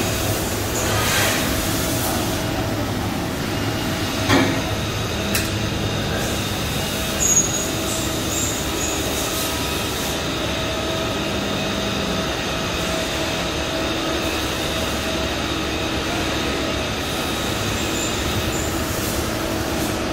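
CNC turn-mill machine (DMG Mori NTX2000) running: a steady mechanical hum with several held tones, with two short knocks about four and seven seconds in and brief high squeals after the second.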